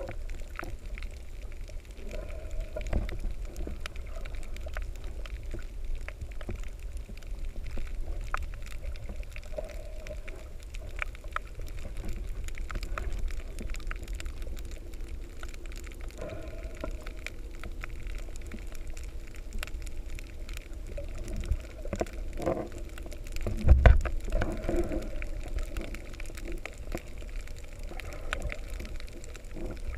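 Underwater sound picked up by a camera in its waterproof housing while snorkeling: a steady low water rumble with muffled gurgling and scattered crackling clicks. A loud dull thump comes about 24 seconds in.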